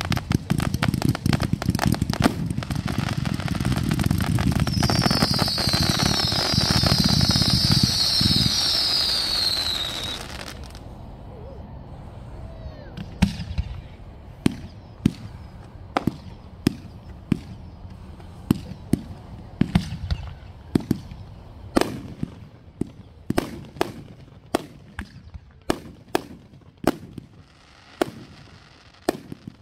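Fireworks firing: a dense barrage of rapid shots and crackle, with a band of many whistles falling in pitch through its second half, stops abruptly about ten seconds in. Then single fireworks go off one after another, about one or two sharp reports a second.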